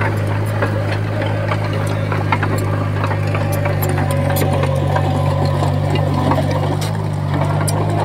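Heavy machine's diesel engine running steadily at a constant speed, with scattered light clicks over it.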